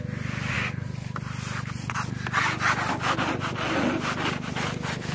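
Snow being brushed and scraped off a car, in quick repeated strokes that grow busier partway through, over a steady low hum.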